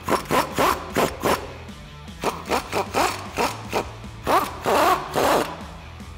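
Impact wrench spinning in short trigger blips, about three a second, then a longer run from about four seconds in, running down the U-bolt nuts on a truck's rear axle.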